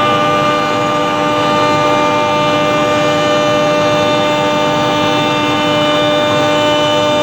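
Five-axis CNC cutting machine running steadily: a constant mechanical whine of several held tones over a loud, even noise.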